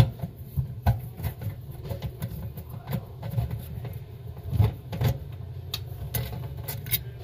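Scattered metallic clicks and taps as a 7 mm socket driver is fitted onto and turns the small screws of an oven's metal manifold plate, over a steady low hum.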